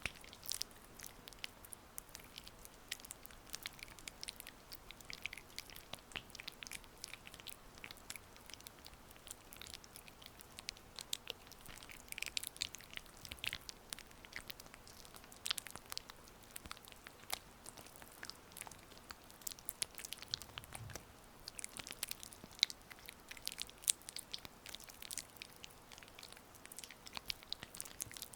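Oiled hands massaging a face close to the microphone: faint, irregular wet clicks and sticky crackles.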